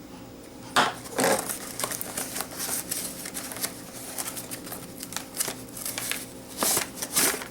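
Retail box packaging being opened by hand: irregular rustling, scraping and crinkling, with louder bursts about a second in and again near the end.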